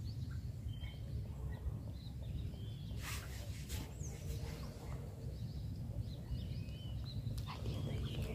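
Campo flicker knocking its bill into a dead tree stump while working on a nest hole: a few sharp knocks, the clearest about three seconds in and again near the end. Small birds chirp in the background over a low steady rumble.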